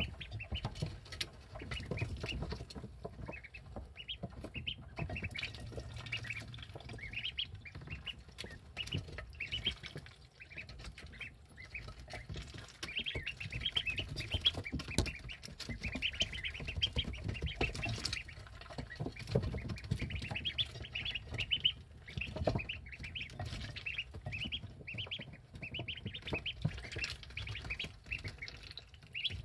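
Eleven-day-old ducklings peeping, a near-continuous run of short high peeps, with scattered sharp clicks of their bills dabbling at the water dish and feeder.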